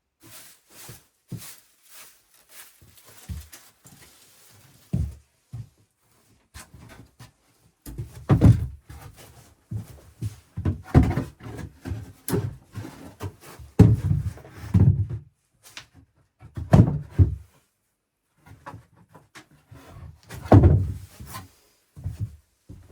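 A series of irregular knocks and heavy thuds, sparse at first and coming thick and loud from about a third of the way in.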